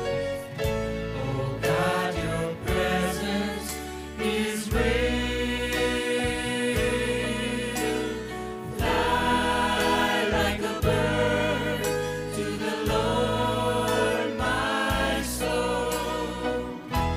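Gospel vocal group singing with vibrato over instrumental backing, with a bass line that holds each low note for a second or two.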